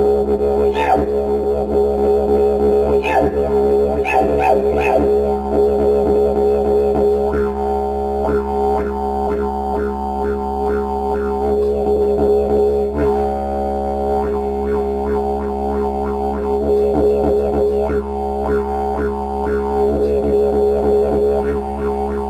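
Didgeridoo playing a steady low drone, with a quick rhythmic pattern of pulses over it that shifts every few seconds.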